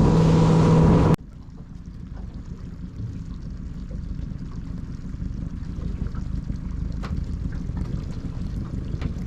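A boat's outboard motor runs with a steady hum for about a second, then cuts off suddenly. After that there is gentle water trickling and lapping at the hull, with a few faint knocks.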